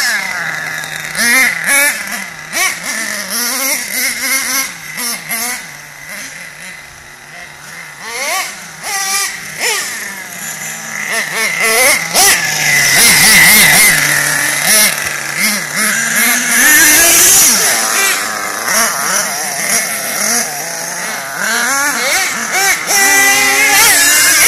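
Small two-stroke nitro engine of a radio-controlled monster truck revving hard and repeatedly, its high-pitched buzz rising and falling in quick glides as the throttle is worked. It grows louder from about halfway through.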